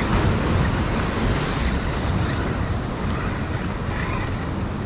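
Ocean surf breaking and washing over the rocks of a jetty, with wind buffeting the microphone. A wave surges louder about a second in.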